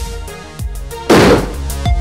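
A single loud rifle shot about a second in, its report fading over roughly half a second, over electronic music with a steady beat.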